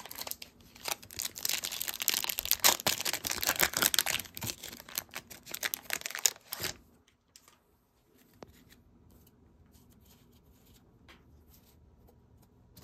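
Wrapper of a trading-card pack being torn open and crinkled, a dense crackle for about the first seven seconds that then stops. Afterwards only a few faint clicks of cards being handled.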